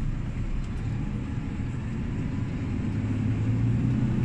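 Volvo FH460's 13-litre straight-six diesel engine heard from inside the cab, running low and steady, then pulling harder about three seconds in as the truck moves off.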